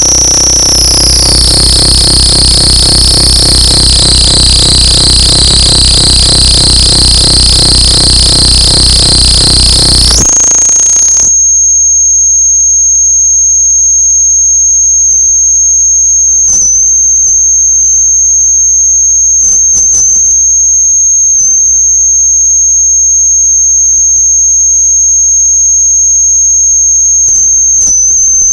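Harsh electronic noise music: a loud, dense wall of distorted noise with a high whistling tone that slides down, cutting off abruptly about ten seconds in to a steady high-pitched whine over a low hum, broken by a few scattered clicks.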